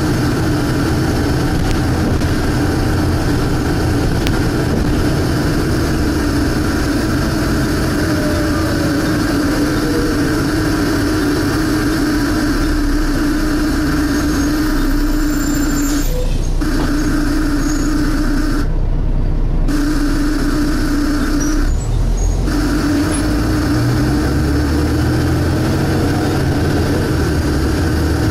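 Volvo B7TL double-decker bus engine running under way, heard from inside the bus, with a loud, steady suction noise from the engine. The suction noise and engine sound break off briefly three times around the middle.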